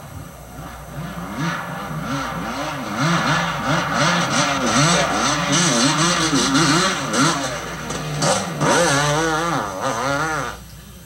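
Motocross bike engine revving up and down about once a second as the rider works the throttle through the sand track, growing louder as it nears. Near the end the pitch wobbles quickly, then the sound drops away.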